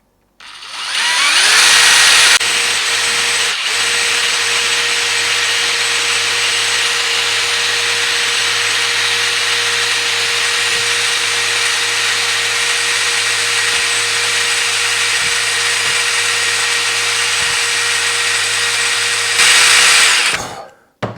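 Rotary tool with a diamond burr starting up with a rising whine, then running steadily while resharpening the steel serrations of a multitool blade, and winding down near the end.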